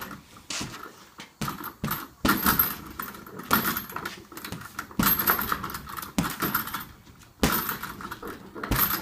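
Gloved punches landing on an Everlast heavy bag in an irregular string of about a dozen hits, with the bag's metal hanging hardware jingling each time it is struck and swings.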